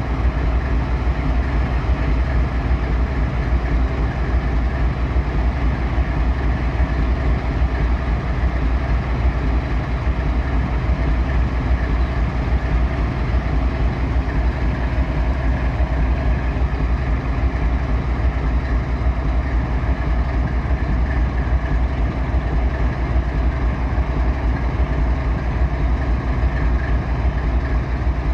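GE ES44AC diesel-electric locomotive's GEVO-16 V16 four-stroke diesel engine idling steadily. Its sound sits mostly in the low bass and holds an even level, with no change in engine speed.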